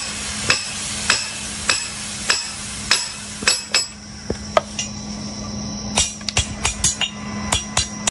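Sharp metallic clicks or taps, evenly spaced about every half second at first, then a quicker run of clicks near the end, over a steady low hum.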